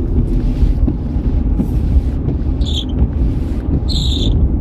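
Vehicle on the move: a heavy, steady low rumble of engine and road noise with wind buffeting the microphone. Two short high-pitched chirps sound about two and a half and four seconds in.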